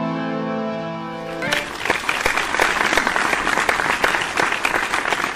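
A held chord of opening music ends about a second and a half in, and audience applause takes over for the rest.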